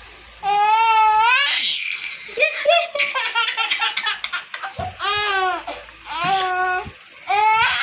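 A toddler laughing in several high-pitched bursts, with a run of quick, short laughs in the middle.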